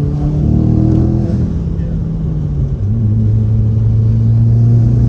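Car engine pulling under throttle on a test drive: the engine note rises for about a second, falls away, then holds a steady, louder note. This is the load range where the owner is chasing a misfire on cylinder one, which he says is still present.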